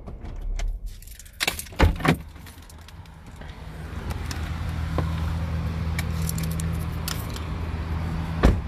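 Handling noise as someone gets out of a car: keys jangling, with sharp clicks and knocks about a second and a half in and again near the end. A steady low rumble follows from about halfway through.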